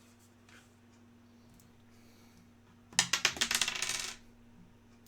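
A die rolled onto a table, clattering and tumbling in a quick run of clicks for about a second, starting about three seconds in, and dying away as it settles.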